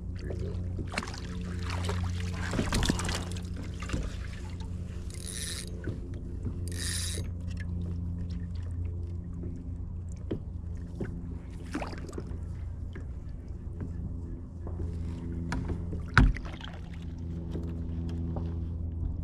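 Kayak's battery-powered electric motor humming steadily. Two brief high buzzes come about five and seven seconds in, and a sharp knock on the hull about sixteen seconds in.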